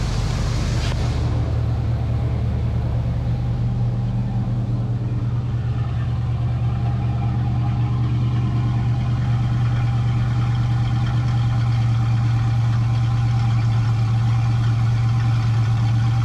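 1985 Ford Mustang's 5.0 V8 idling steadily without surging, its formerly rough, hunting idle cured by cleaning a dirty EGR valve.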